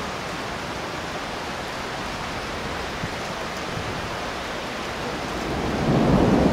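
Steady rain hiss during a thunderstorm, with a low rumble of thunder swelling up near the end.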